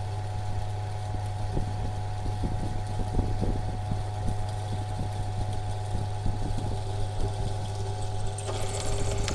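Benchtop drill press running steadily while its bit cuts a 6.3 mm tapping-size hole through a stainless steel part, with irregular scraping ticks from the cut. A brighter hiss joins near the end as the drill comes through the metal.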